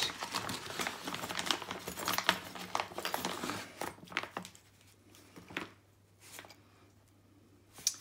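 Clear plastic bag crinkling and rustling as hands rummage through it for about four seconds. After that come a few light, separate clicks as a small cylinder lock is handled.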